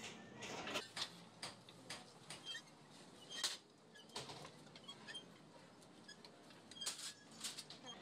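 Irregular clicks, knocks and short metallic squeaks of a hand-cranked plate rolling machine, its gears turning while a steel sheet is curved through the rollers.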